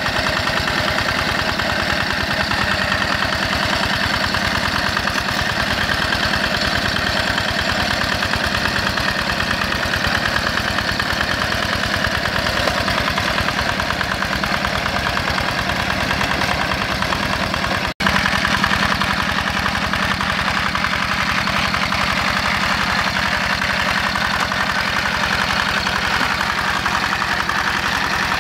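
Yanmar single-cylinder diesel engine of a two-wheel hand tractor running steadily while plowing wet paddy mud. The sound cuts out for an instant about two-thirds through, then carries on.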